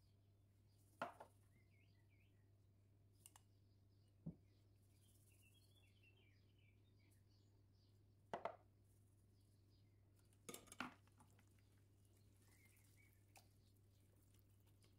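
Stainless steel mesh sieve knocking and clinking against a glass jar and glass mixing bowl while fine semolina is sifted through it: a handful of sharp taps, some in quick pairs, over a faint steady hum.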